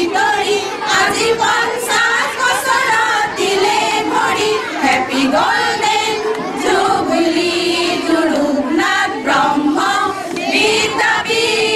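A group of women singing a song together into microphones.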